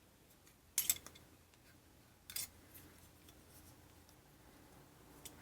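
Two short scraping clicks, about a second in and again a second and a half later, from a microphone being handled and tried in a plastic shock mount.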